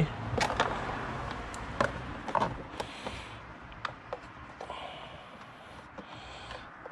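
Scattered light clicks and small knocks with a few short scraping rustles, from hands, a bolt and socket extensions working at the airbox mounting in a car engine bay.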